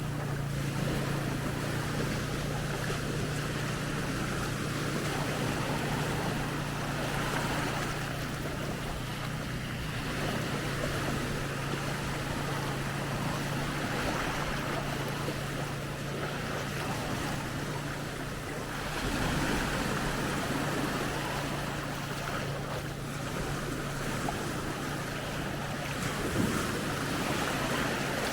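Small waves washing up on a sandy beach, the wash swelling and fading every several seconds, with wind buffeting the microphone and a steady low hum underneath.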